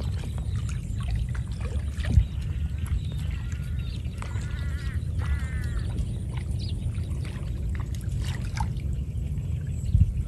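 Wind buffeting the microphone with a steady low rumble. A series of short, chirping animal calls comes about three to five seconds in, and there is a thump about two seconds in and another near the end.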